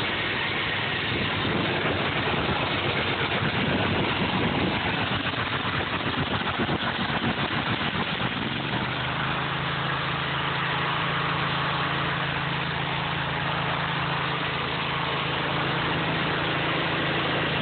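Small single-cylinder engine of a riding lawn mower running: uneven and fluttering at first, then settling into a steady, even hum about eight seconds in.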